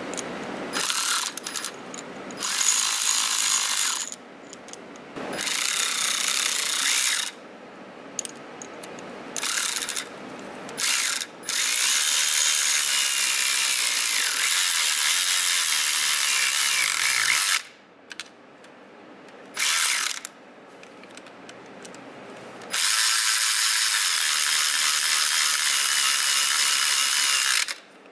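Snap-on cordless electric ratchet running in repeated bursts driving bolts, mostly short runs of one to two seconds plus two longer runs of about five and six seconds.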